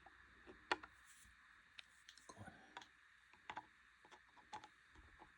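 Near silence with faint, scattered clicks and light metal taps of a screwdriver working the oil pan screws, one sharper click near the start.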